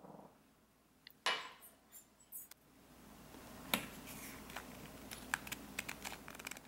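A single knock about a second in, then light clicks over a soft, low hiss that slowly builds from about three seconds in, as a long-reach lighter is brought to a homemade water-bottle alcohol stove filled with denatured alcohol.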